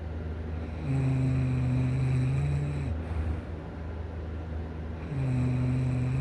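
A person snoring: a long, low-pitched snore of about two seconds, then a quieter gap, then a second snore starting about five seconds in.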